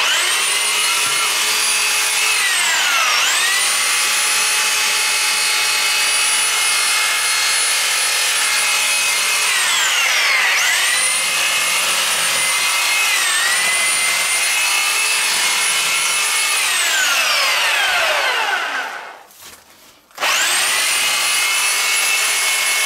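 Corded MacAllister reciprocating saw with an 18 cm blade running and cutting through a Christmas tree's branches and trunk. Its motor whine sags and recovers twice, then winds down and stops about nineteen seconds in, and starts again about a second later.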